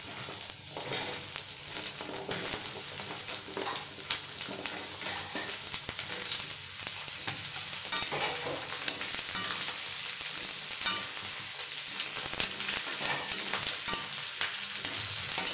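Chopped pointed gourd (parwal) sizzling steadily in hot oil in a steel wok, with a metal spatula scraping and clicking against the pan as it is stirred.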